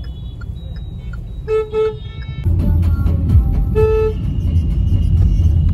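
Vehicle horns honking in street traffic: two short beeps about one and a half seconds in and another just before four seconds. Underneath is a low traffic rumble heard from inside a moving car, which gets louder about halfway through.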